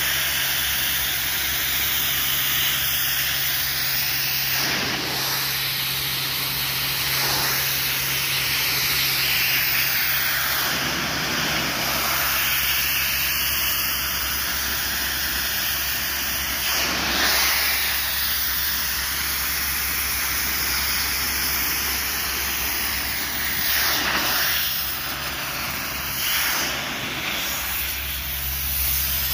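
Hot-water pressure washer lance spraying a high-pressure jet onto concrete paving slabs to strip off chewing gum: a loud, steady hiss that swells every few seconds as the jet moves, over a steady low hum.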